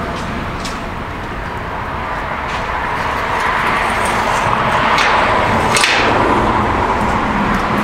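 Road traffic noise: a steady hiss of passing vehicles that swells through the middle and fades slightly near the end, with a light knock about six seconds in.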